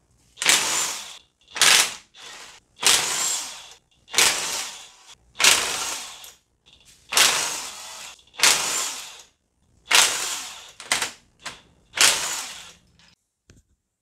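Ratchet wrench with an E12 Torx socket clicking in about ten short bursts, roughly one a second, as bolts are worked loose.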